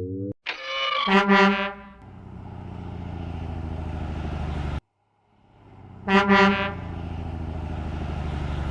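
Garbage truck sound effects: a horn honks, then a steady low engine rumble builds and runs. It cuts off briefly about five seconds in, then a second horn honk sounds and the engine rumble resumes.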